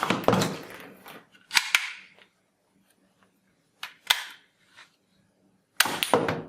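Toy gun firing a plastic ball bullet: a sharp snap at the start, then a few short clicks and knocks a couple of seconds apart.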